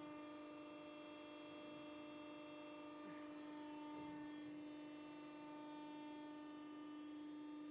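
Hydraulic guillotine shearing machine powered up and idling: a faint, even electric hum with one strong low tone and fainter higher tones above it.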